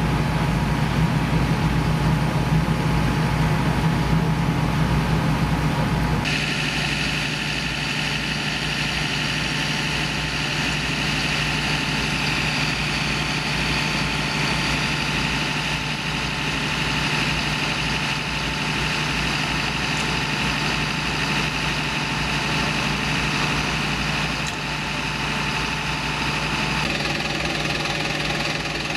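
Fire engine's engine idling steadily. The sound changes abruptly about six seconds in and again near the end, to another steady idling engine.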